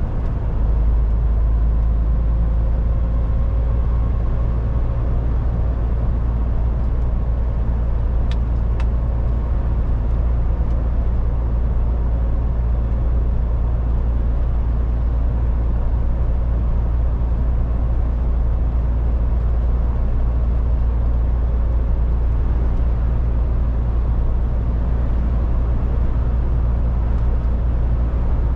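MAN TGX 18.440 truck's diesel engine running steadily while driving, a constant low drone with road and tyre noise over it. Two short sharp clicks about eight seconds in.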